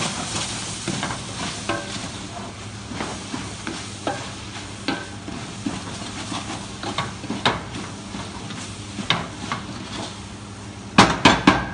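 Sliced onions sizzling as they caramelize in a large stainless steel pot, stirred with a wooden spoon that scrapes and knocks against the pot now and then. Near the end comes a quick run of louder spoon knocks.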